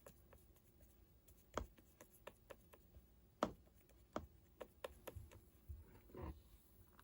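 Faint, scattered clicks and taps of small objects being handled by hand, two of them louder, with a short rustle about six seconds in.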